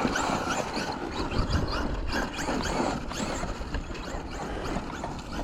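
Traxxas Slash RC truck's 3300kV brushless motor whining, rising and falling in pitch again and again as the throttle is worked, over a steady rough noise.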